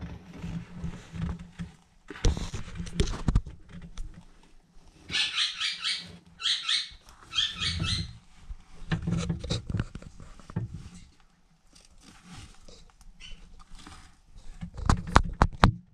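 A white mouse caught in a savannah monitor's jaws squealing in distress: three short runs of rapid high squeaks around the middle. Scuffing and rustling come before and after, and a cluster of sharp knocks near the end is the loudest sound.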